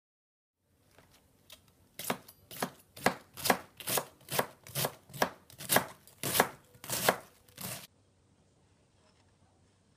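Chef's knife shredding a head of green cabbage, chopping through the leaves onto a cutting board: a steady run of crisp chops at about two a second that stops abruptly near the end.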